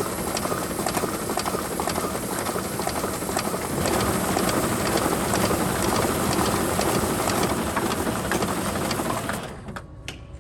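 Ballot-processing machine running: a fast, continuous clatter of paper and mechanism that fades out near the end.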